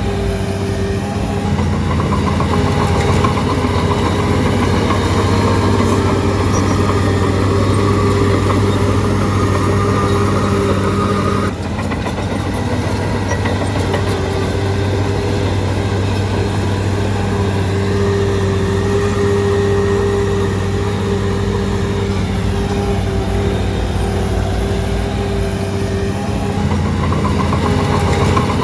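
Shantui DH17C3 bulldozer's diesel engine running steadily under work, a continuous low drone, with a sudden brief drop about a third of the way through.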